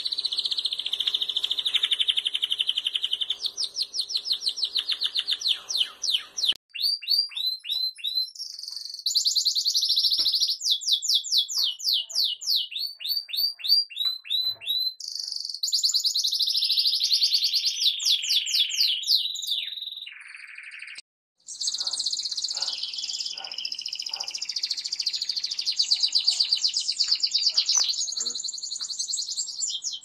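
Domestic canaries singing in turn, with long rolling trills and runs of rapid repeated chirping notes. The song changes abruptly to a different bird a few times, with a short gap about two-thirds of the way through.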